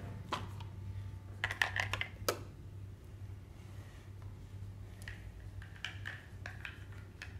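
Plastic toy cookware clicking and clattering as it is picked up and handled: a quick run of light taps about one and a half to two and a half seconds in, and a few scattered taps later on, over a steady low hum.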